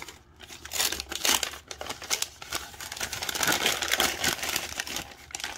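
Christmas gift-wrapping paper crinkling and rustling with quick irregular crackles as it is handled and pulled off a package by hand, starting about a second in.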